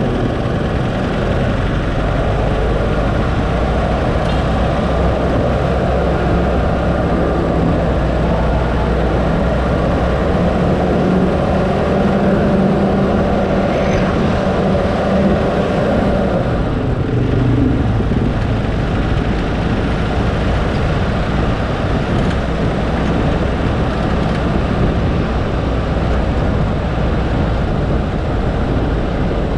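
Vehicle driving along: steady engine and road noise, with the engine note strengthening in the middle and changing about sixteen seconds in.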